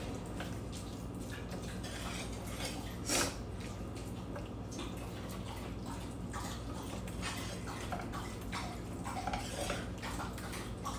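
Silicone spatula scraping and pressing a noodle mixture flat in a glass baking dish, with scattered light scrapes and taps against the glass and one louder knock about three seconds in, over a steady low hum.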